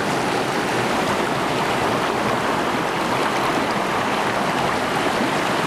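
Shallow rocky stream flowing: a steady rush of running water.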